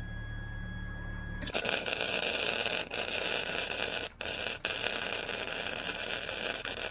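Wire-feed welder arc crackling and sizzling as a weld is laid, striking about a second and a half in after a steady machine hum, with three brief breaks in the arc. The welder keeps binding up and sputtering, which the welder suspects comes from contact tips too small for the wire.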